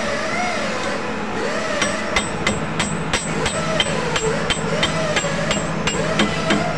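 Sharp, ringing metal-on-metal taps, about three or four a second, as the drawbar parts are knocked into a Doosan VMC spindle. The tapping starts about two seconds in and stops shortly before the end.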